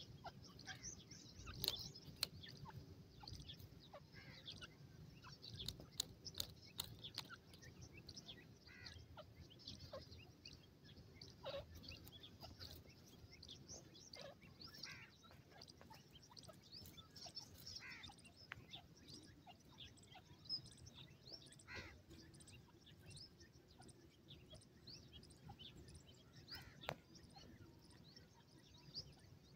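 Grey francolin (teetar) chicks giving short, high peeps, faint and scattered irregularly, with a few sharp clicks.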